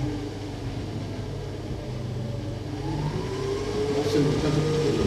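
Electric stand mixer running, its motor whirring steadily with a pitch that drifts up and down as it mixes cookie dough.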